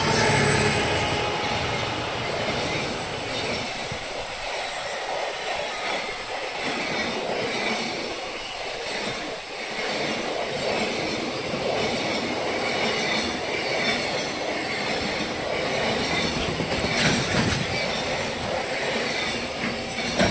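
Freight train of JR container wagons rolling past close by, a steady noise of wheels on rail, loudest at the start when a passenger electric train is also passing the other way on the far track. The noise eases as the last wagon goes by near the end.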